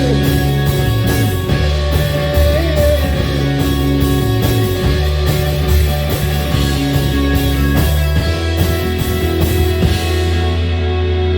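Live rock band playing the instrumental ending of a song, with electric guitar, bass and drums. About ten seconds in the drums stop and a final chord rings on.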